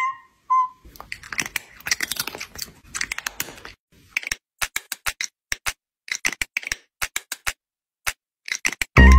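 Graphite pencil scratching on paper as it sketches: a dense run of quick scratchy strokes, then separate short strokes a few a second. Two short high blips sound at the very start.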